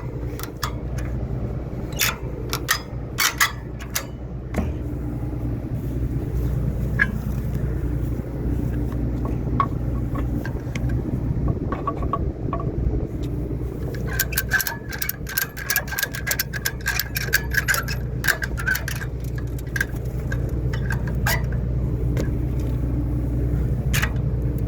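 Farm tractor engine running steadily, with scattered metallic clanks and rattles from the hitched wagon and header trailer.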